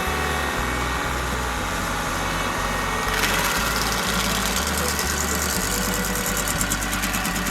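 Kubota LX3310 compact tractor's diesel engine running steadily, driving a Baumalight 1P24 PTO stump grinder. About three seconds in, a louder, harsher grinding rush with fast regular pulses joins the engine.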